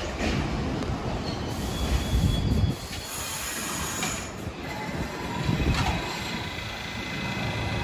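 New York City subway train running through the station: a heavy wheel-and-track rumble with thin, high-pitched wheel squeal. The rumble drops off suddenly about three seconds in, then builds again as a steady squeal comes in over the second half.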